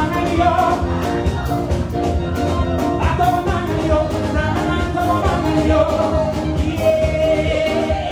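Loud dance music with a steady beat and a singing voice.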